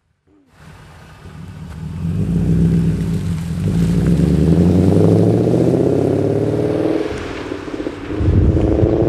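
BMW 540i's V8 on a true dual exhaust with the mufflers deleted and only bullet resonators, accelerating hard. Its pitch and volume climb steadily, fall back once about seven seconds in as at an upshift, then climb again.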